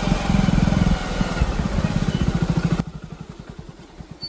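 Motorcycle engine running while riding, with rough wind and road noise over its even pulsing. About three seconds in the noise drops abruptly, leaving a fainter engine putter that fades away.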